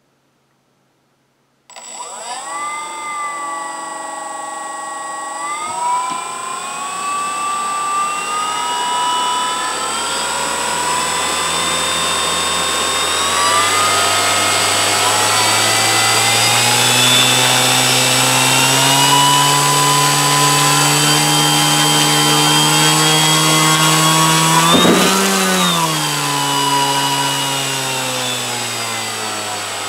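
Brushless electric motor and propeller of an E-flite Pawnee Brave RC plane starting up a couple of seconds in and whining as the throttle is raised in several steps, its pitch climbing to a peak a few seconds before the end and then dropping back. A steady high-pitched whine sits above it throughout.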